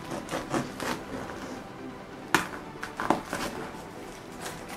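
Cardboard shipping box being opened by hand: flaps pulled back and handled, with a run of rustles and crackles in the first second, then two sharp cardboard knocks about two and a half and three seconds in.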